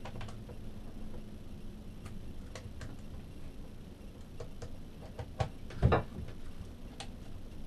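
Screwdriver working a terminal screw on a boat's AC switch panel: scattered small clicks and taps of metal on metal, with a louder knock about six seconds in.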